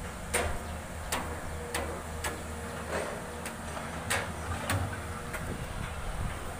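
Diesel engines of hydraulic excavators running with a steady low drone. Sharp clicks sound over it at a fairly even pace, roughly three every two seconds.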